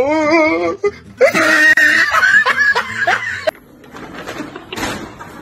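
A person laughing in two stretches over the first three and a half seconds, the pitch wavering up and down.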